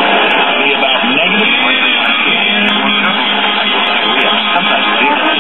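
Guitar-led music from an AM broadcast station playing through the speaker of a 1946 Kitchenaire five-tube AM radio, thin-sounding with no bass or treble.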